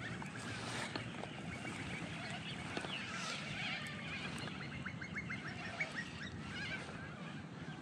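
Several birds calling at once, many short notes rising and falling, with a quick rattling run of notes about five seconds in, over low steady background noise.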